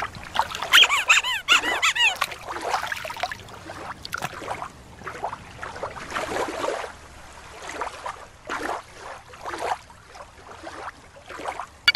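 Killer whale (orca) calls: squeaky, wavering whistles and squeals, with water splashing between them.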